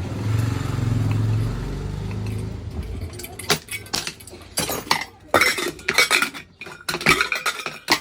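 Metal clanking and clinking from a pressure cooker being handled and worked on, in a string of sharp, irregular knocks. A low steady hum fades out about three seconds in, just before the clanking starts.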